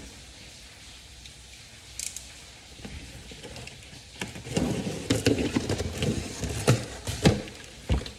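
A package being handled and opened: rustling and crinkling of packaging with scattered clicks and knocks, busiest for about three seconds past the middle.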